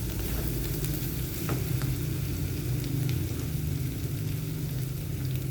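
Food sizzling as it fries in hot oil in a pan, with a few light clicks of a spatula against the pan and a steady low hum underneath.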